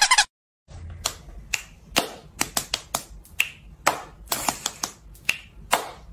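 A run of irregular sharp clicks, about three a second, starting about a second in after a short silence, over a faint low hum.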